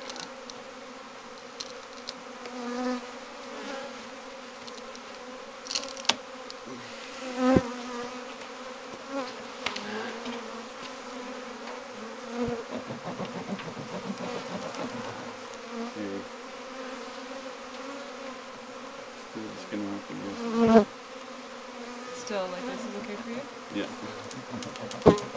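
Honeybees buzzing around an opened hive: a steady hum from many bees in the air. A few sharp knocks sound through it, the loudest about twenty seconds in.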